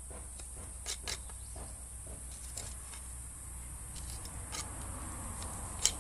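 Knife blade cutting and scraping into a white oak branch by hand: scattered short scrapes and clicks, with a sharper one near the end.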